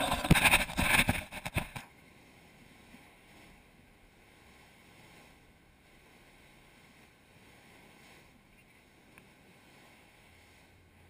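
Loud rustling and knocking of a GoPro being handled and set down in the sand for about the first two seconds. After that, only a faint steady hiss of wind and surf.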